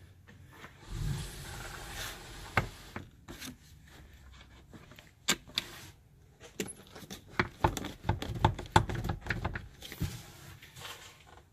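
Metal clicks, knocks and rattles from a fridge slide being handled, with a brief sliding scrape early on and a dense run of knocks near the end.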